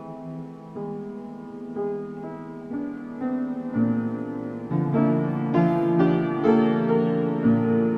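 Piano playing a slow progression of held chords, a new chord struck about once a second, growing louder with a deeper bass note from about four seconds in.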